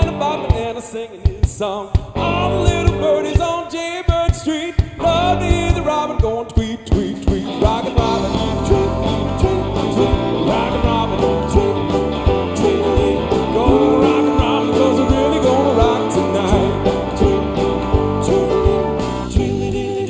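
Live band playing an upbeat rock-and-roll song: a lead singer over drum kit, electric guitar, bass guitar and keyboards.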